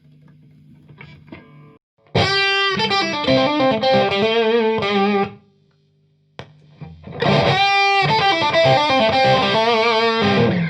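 Electric guitar played through a Limetone Audio Focus-NX compressor pedal with its Color 1 (upper-mid) control turned up for a modern mid-boosted tone. A faint amp hum comes first, then the same short riff is played twice, each time for about three seconds with a brief pause between.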